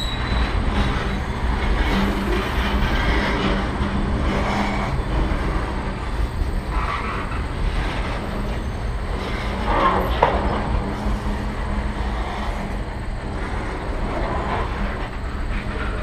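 Freight train gondola cars rolling slowly past: a steady rumble of wheels on rail, with a brief squeal about ten seconds in.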